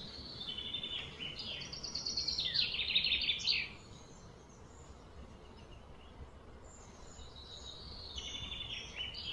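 A songbird singing: a long phrase of rapid trilled notes that changes pitch in steps and grows louder, ending about three and a half seconds in, then a shorter similar phrase near the end, over a steady low background hum.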